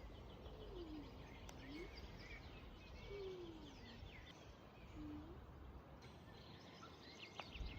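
Faint woodland ambience: scattered small-bird chirps and song, with three low calls that glide in pitch.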